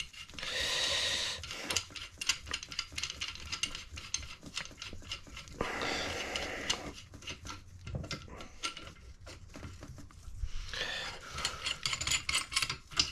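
Metal hand tools clinking and scraping during work on a cylinder head, with many light clicks and three longer noisy stretches of about a second each, near the start, in the middle and near the end.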